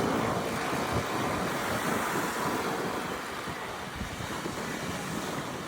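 Wind buffeting the microphone over the wash of surf, with a passing vehicle's noise fading away over the first few seconds.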